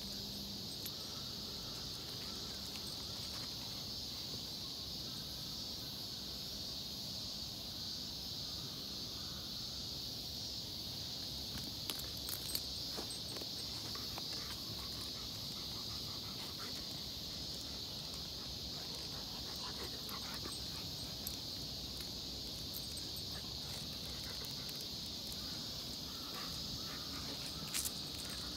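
Insects chirping in a steady, high-pitched chorus, with a few brief clicks about halfway through and near the end.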